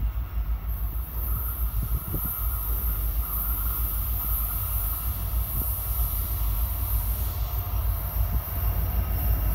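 Union Pacific diesel locomotives hauling a hopper train approach on a curve, giving a steady heavy low rumble. A faint high-pitched squeal joins about a second in.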